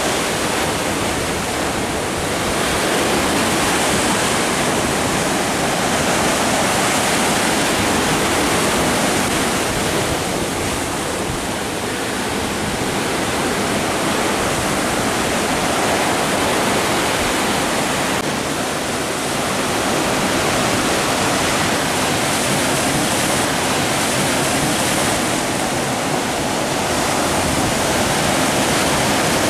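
Sea surf breaking and washing over shoreline boulders: a loud, continuous rushing that swells and eases every several seconds.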